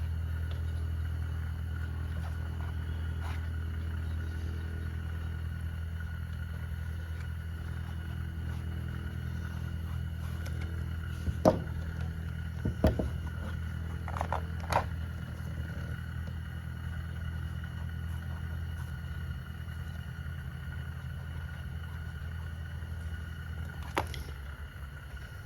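A steady low mechanical hum with a faint higher whine, easing slightly near the end. About halfway through come a handful of short sharp knocks and clicks, with one more knock near the end.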